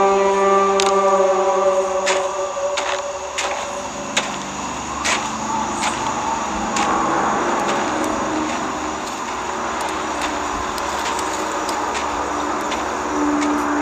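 Film soundtrack: a sustained droning chord in the score for about the first three seconds, fading into a dark, noisy ambience with scattered clicks and knocks.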